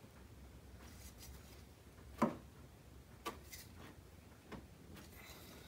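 Three soft taps as a flexible mud flap is pressed against the car's wheel-arch edge to mark the bolt position. The taps come about a second apart, and the first is the loudest.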